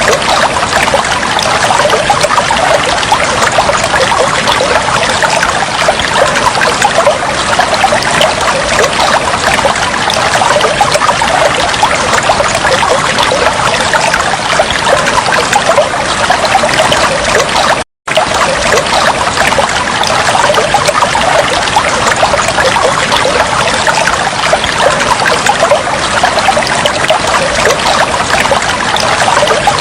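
Steady flowing, trickling water, a dense bubbling babble that cuts out for an instant about eighteen seconds in.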